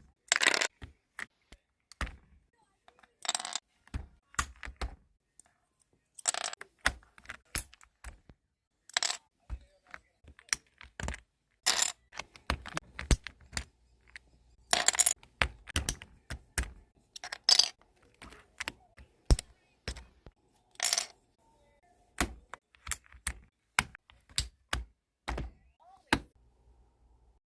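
Plastic keycaps being pressed onto a keyboard's switches: a string of sharp, irregular clicks and taps. Now and then a short rustling scrape.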